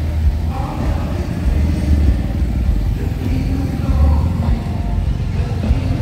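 Road traffic: cars and motorcycles driving past close by, a steady low rumble of engines and tyres that swells as each vehicle goes by.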